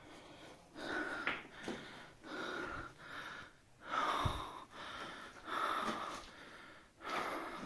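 A person breathing hard, with heavy, noisy breaths about one every second and a half.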